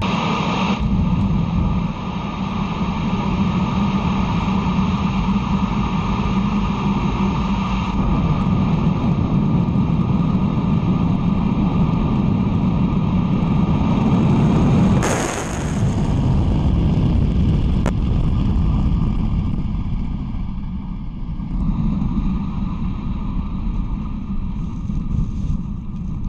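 Soyuz-2.1b rocket's kerosene-oxygen engines roaring during ascent as a steady, deep rumble, with a brief louder rush about halfway through.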